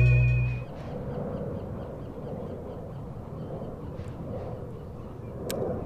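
The tail of an electronic music track ends on a held note less than a second in. It is followed by quiet open-air background and a run of soft, regular ticks, about four a second, from a spinning reel being worked by hand. A single sharp click comes near the end.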